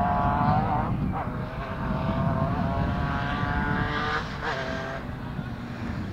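Rally car engine accelerating hard, its pitch climbing through each gear with quick upshifts about one second in and again just after four seconds in.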